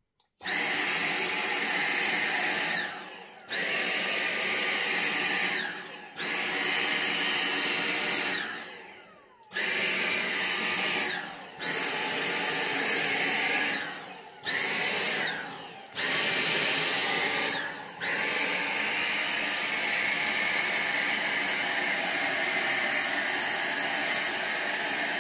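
Handheld Dyson cordless vacuum cleaner run in short bursts: its motor starts abruptly with a high whine and winds down with a falling pitch each time it is switched off, seven times over, then runs steadily for the last third.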